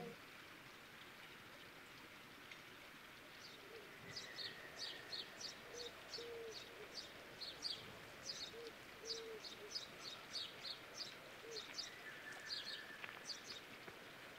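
Faint outdoor ambience with wild birds chirping: a series of short, high, repeated chirps starts about four seconds in, with a few lower short calls among them.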